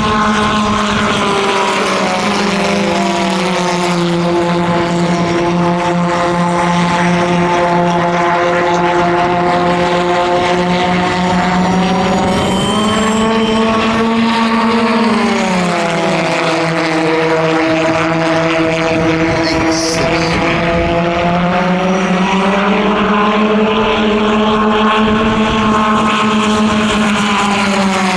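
Pulsejet engines of model aircraft in flight, running with a loud, steady low drone full of overtones. The pitch rises and falls as a plane passes, about halfway through and again in the last third.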